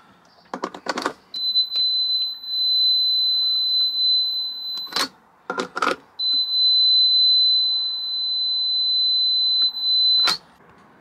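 Plug-in mains socket tester being pushed into a UK three-pin socket with plastic clicks and knocks, then giving a steady high beep for about three and a half seconds until it is pulled out with a click. It is plugged into the next socket and beeps again for about four seconds. This is the socket-by-socket check that the sockets are wired correctly.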